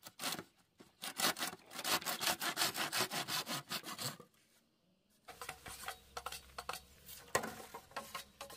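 Hand saw cutting through a green bamboo pole with quick back-and-forth strokes, about three a second, that stop about four seconds in. After a short gap come lighter clicks and taps over a low steady hum.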